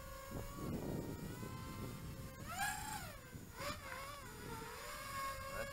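Faint whine of a multirotor drone's motors and three-blade propellers in flight. The pitch holds steady, then rises and falls briefly a few times around the middle as the throttle changes.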